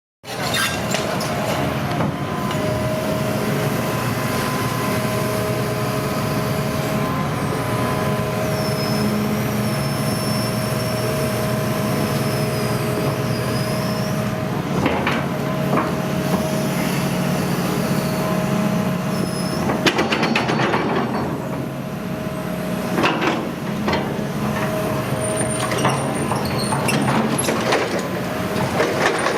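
Hitachi ZX210 tracked excavator running: the diesel engine hums steadily under a constant hydraulic whine, with high squeals partway through and several metallic clanks in the second half.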